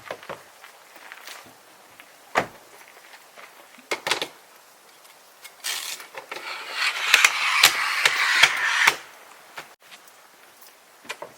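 Hard objects being handled: a few sharp single knocks, then about three seconds of dense rustling with clicks and clatter.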